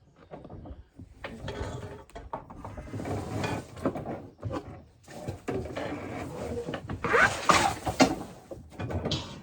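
Metal parts of a sawmill's feed works being handled: irregular clanking, clicking and scraping, with a brief gliding squeak about seven seconds in.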